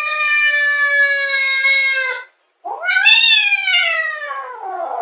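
Domestic cat yowling: one long drawn-out meow held at a nearly steady pitch for about two seconds, then, after a brief break, a second call that rises and slowly slides down, turning upward again near the end.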